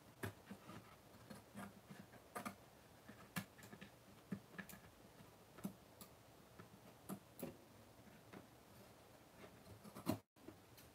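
Near silence broken by faint, irregular taps and clicks of hands handling craft materials and scissors on a wooden tabletop, with a slightly louder click near the end.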